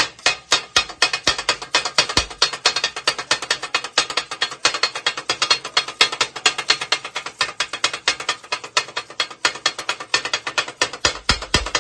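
Kottu roti being chopped: two flat metal blades striking rapidly and rhythmically on an iron griddle, a fast continuous clatter of metal-on-metal strikes, about six or seven a second.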